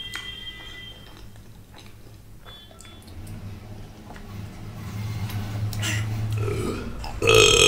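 A person drinking from a can of cola, then one loud burp near the end.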